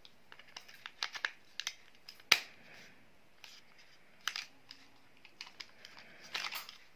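Batteries being fitted into the hard plastic battery compartment of a battery-operated toy figure: scattered clicks and taps of battery and plastic, the sharpest about two seconds in and a short cluster near the end.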